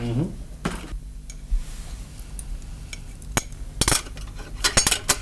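Chopsticks and porcelain rice bowls and dishes clinking during a meal: scattered sharp clinks, most of them bunched in the second half.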